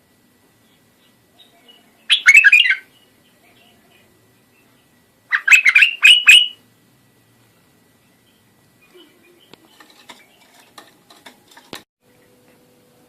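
Iraqi bulbul singing: two short phrases of quick notes, one about two seconds in and a longer one at about five and a half seconds, followed by faint scattered clicks and one sharp click near the end.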